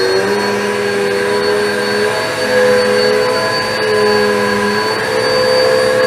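Philco Up Right 2000 W upright vacuum cleaner running while pushed forward over carpet: a loud, steady rush with a motor whine whose pitch wavers slightly up and down.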